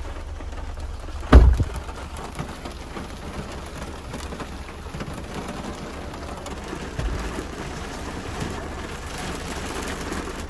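Heavy rain drumming on a car's roof and windscreen, heard from inside the cabin, with one loud thump about a second and a half in.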